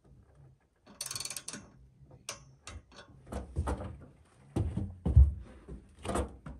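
A ratchet wrench clicking in a short quick run about a second in as a roof-rack mount bolt is turned, followed by scattered clicks and knocks of handling and a heavy low thump about five seconds in.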